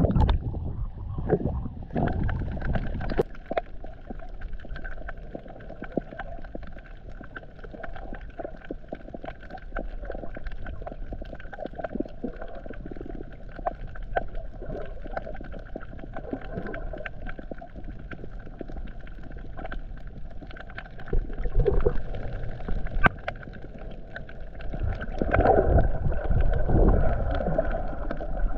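Water heard by an action camera in its waterproof housing: a low rumbling slosh as it rides the waves at the surface for the first few seconds, then a muffled underwater hiss with scattered clicks and crackles. Louder low rumbling swells come twice near the end.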